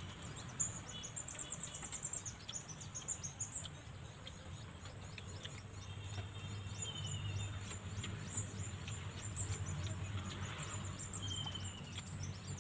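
Outdoor ambience of wild birds and insects: rapid high-pitched chirping throughout, with a short run of descending whistled bird notes about halfway through and again near the end, over a low steady rumble.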